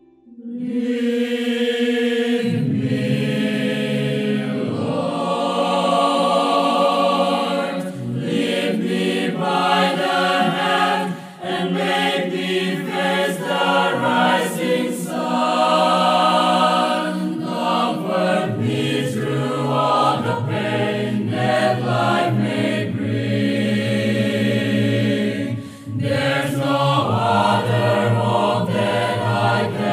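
A mixed-voice choir singing an English hymn in parts, with brief pauses about a third of the way through and again near the end.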